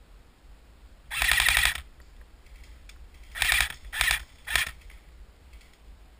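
Airsoft rifle firing in bursts of rapid clicking shots: one longer burst about a second in, then three short bursts in quick succession past the middle.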